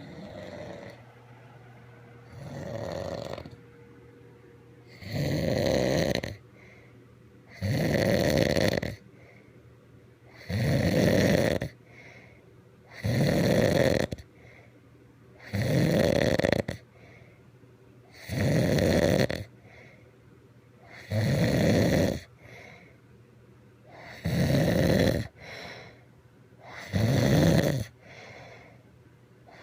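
A man snoring: about ten loud snores, each lasting about a second and coming every two and a half to three seconds, with quiet breathing between them. The first snore is fainter than the rest.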